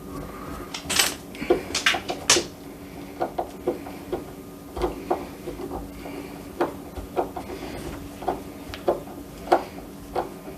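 Irregular metallic clicks and clinks of screws and a screwdriver while the door latch hardware is screwed in, loudest about one to two seconds in.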